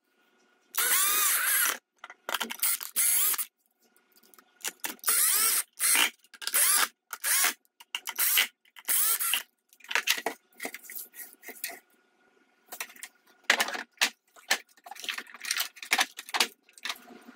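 Electric screwdriver driving small screws into a 3D-printed plastic cover plate in runs of about a second each, several times over. In the second half, plastic parts and gears click and knock as they are handled.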